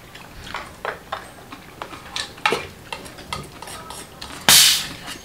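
Light clinks and clatter of a spoon and chopsticks against bowls and shells while eating, then, about four and a half seconds in, a short loud hiss of gas escaping as the cap of a large plastic bottle of fizzy soda is twisted open.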